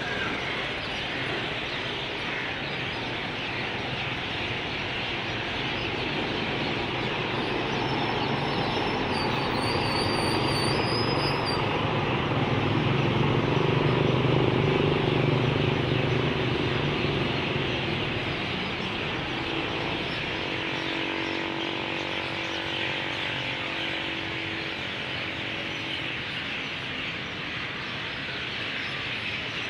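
A city bus drives past close by, its engine growing to loudest about halfway through and then fading, over steady high-pitched chirping. A brief high whine comes about nine seconds in.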